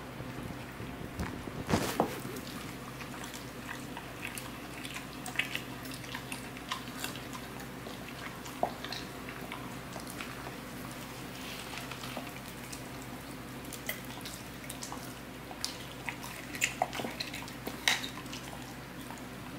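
German Shepherd licking and mouthing a raw chicken drumstick on a hard floor: scattered small wet smacks and clicks, with a louder clatter about two seconds in and a cluster of sharper clicks near the end, over a steady low hum.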